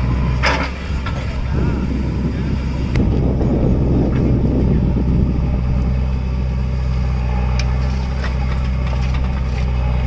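Diesel engine running steadily at a constant low speed, with a few faint clicks and rattles over it.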